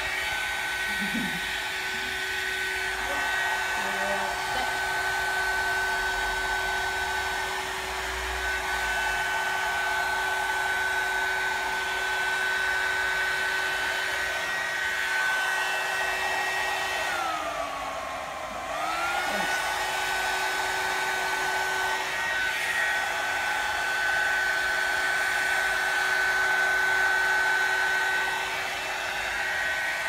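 Louvredo restoration curl dryer (a hot-air styling brush) running steadily on high mode with a whine over rushing air. About halfway through, the motor's pitch sinks briefly and climbs back up.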